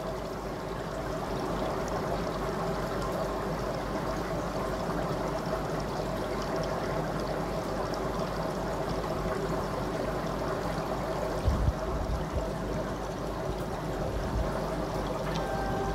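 Aquarium water circulation running steadily: a constant trickling, pouring water sound over a low steady hum. A couple of short, soft low knocks come about eleven and a half seconds in.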